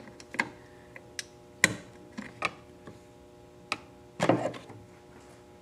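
Irregular clicks and knocks of a hard plastic windshield cowl and its fasteners being handled and pressed at the base of the windshield, with a louder knock about a second and a half in and a short clatter near the four-second mark.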